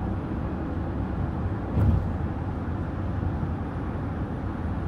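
Car cabin road and engine noise while driving, a steady low rumble, with a single thump just under two seconds in.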